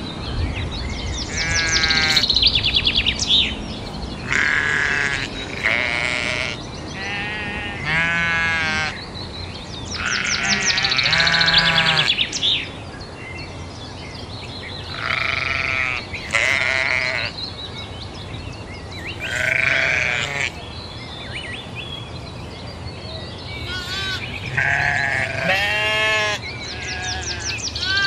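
Several sheep bleating, about a dozen wavering calls at different pitches, one after another and sometimes overlapping, over a steady low background rumble.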